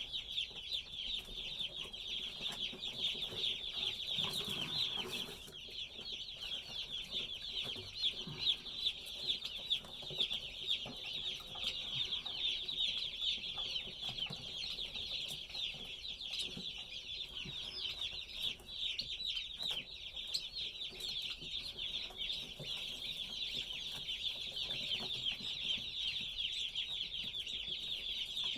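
Many day-old chicks and turkey poults peeping together, a dense, continuous chorus of high, rapid cheeps.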